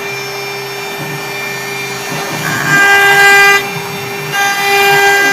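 Stone CNC router running, a steady whine of several tones that grows louder about two and a half seconds in, drops back a second later, and swells again near the end.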